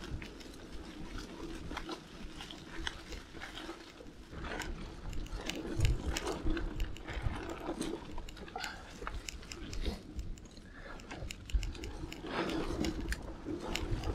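Mountain bike riding over dry, leaf-covered dirt singletrack: tyres crunching through leaves and twigs, with frequent small clicks and rattles and a few louder thumps over bumps.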